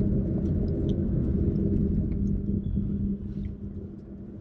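Low rumble inside the cabin of a Hyundai i20 Active rolling slowly, with a steady engine hum under it; the rumble comes in suddenly and eases off after about three seconds.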